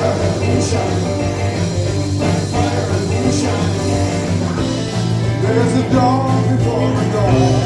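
Live rock band playing: a man singing lead over electric guitars, bass guitar and drums.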